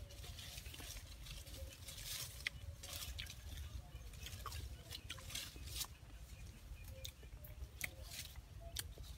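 Irregular rustling, crackling and snapping of leaves, stems and dry leaf litter as fruit clusters are pulled from a low forest plant, over a steady low rumble.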